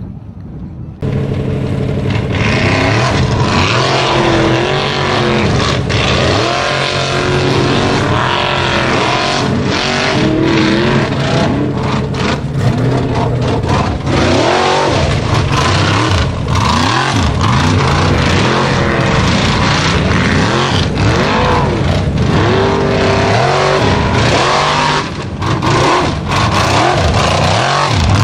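Formula Offroad buggy's race engine at full throttle, revving hard and loud from about a second in, its pitch rising and falling again and again.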